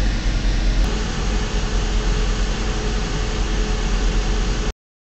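Semi truck diesel engine running at idle, a steady low hum with a noisy rumble, heard from inside the cab. It cuts off suddenly into silence near the end.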